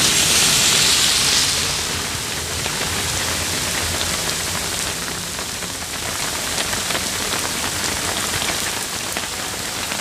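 Heavy rain pouring onto a paved road, a steady hiss that is loudest for the first second and a half.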